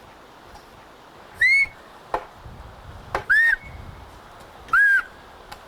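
A man whistling Turkish bird language (kuş dili) loudly through his fingers: three short whistled notes, each rising and falling, each a little lower than the one before.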